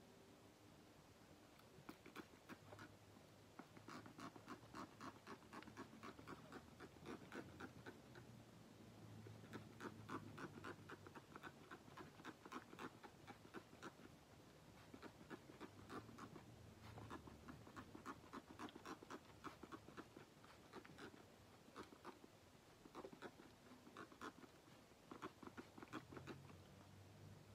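Faint, rapid scratching and crackling of hands scrunching and rubbing through the curls of a curly human-hair wig, coming and going in spells of a few seconds.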